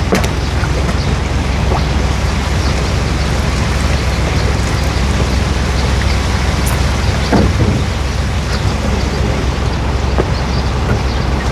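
Live-fish delivery truck running steadily: a low engine hum under a constant rushing wash, with a few faint knocks.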